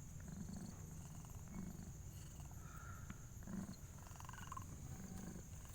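Mother cat in labour purring and breathing heavily, in low pulses about once a second.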